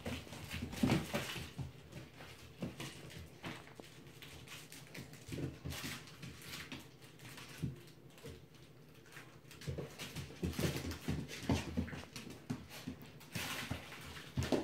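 Puppies moving about a plywood pen, with scattered short knocks and scuffs and brief small dog vocal sounds, busier near the start and again in the last few seconds.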